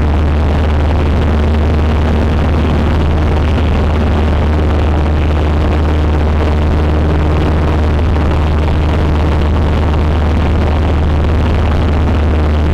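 Cessna 150's four-cylinder Continental O-200 engine and propeller running at a steady speed: a constant low drone that does not change.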